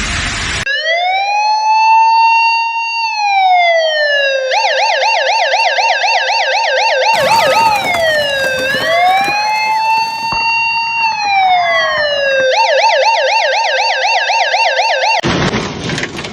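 Electronic emergency siren alternating between a slow rising-and-falling wail and a rapid warbling yelp, sounded twice each. A second siren tone overlaps in the middle.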